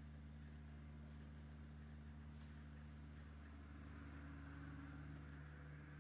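Pencil faintly scratching on drawing paper as outlines are gone over with firmer strokes, over a steady low hum.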